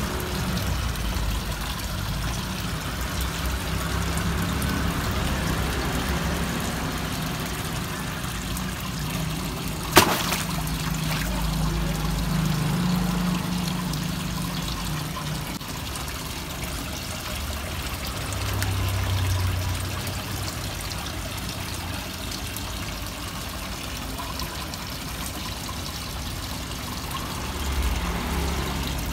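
Water trickling and splashing steadily into a pond, with one sharp click about ten seconds in.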